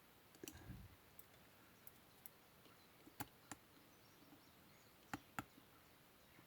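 Faint handling of small chainsaw carburettor parts as a copper blanking disc is fitted: a soft rustle-like rumble, then two pairs of sharp little metallic clicks.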